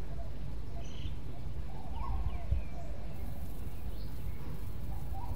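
Outdoor ambience: a steady low rumble with faint, scattered bird chirps and calls over it.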